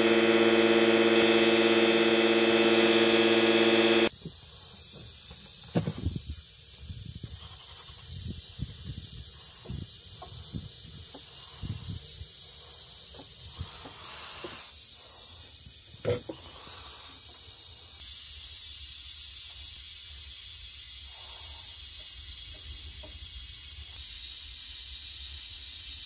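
Sandblasting cabinet equipment running with a loud, steady hum that cuts off abruptly about four seconds in. After that there is a steady high hiss, with a few knocks and clatter as the cast-iron sprinkler part is handled.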